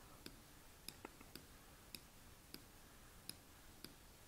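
Near silence broken by faint, irregular clicks, about two a second, from a computer mouse or trackpad being used to pan a map.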